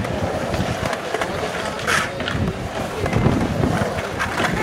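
Skateboard wheels rolling on the concrete of a skate bowl, with a couple of sharp clacks about two seconds in.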